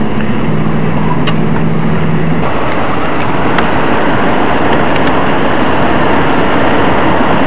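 Steady road noise of a car driving on a highway: engine, tyres and wind rush together. A low hum fades out about two and a half seconds in.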